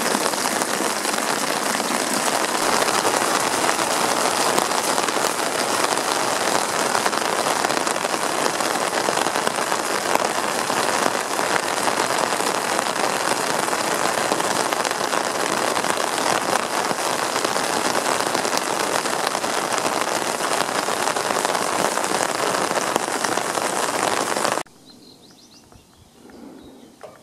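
Rain and a stream of rainwater from the roof gutter pouring and splashing into a barrel of laundry: a loud, steady rushing splash. It cuts off suddenly near the end, leaving only faint outdoor sound.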